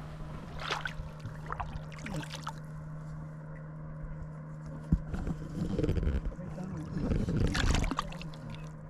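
A boat's motor running with a steady low hum, with knocks and rumbling handling noise on the boat between about five and eight seconds in.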